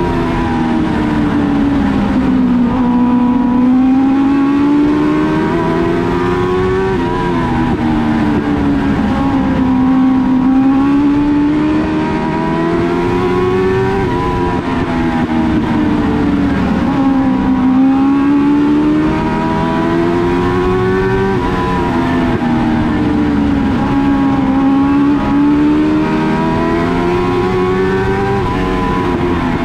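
Short-track race car engine at racing speed, revving up along each straightaway and dropping off into each turn, rising and falling in a steady cycle about every seven seconds.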